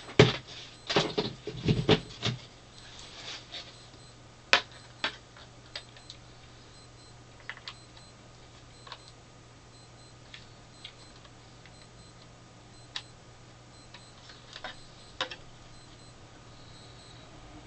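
Handling noises from unpacking: a quick run of knocks and rustles at the start, then scattered single sharp clicks and taps as plastic parts and cords are handled, over a faint steady low hum.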